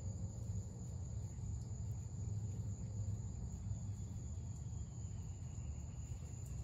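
Quiet outdoor background: a steady low rumble under a faint, steady high-pitched insect drone.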